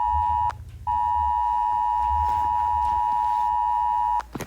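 Emergency alert tone: a steady, loud, high-pitched beep that breaks off briefly about half a second in and again near the end.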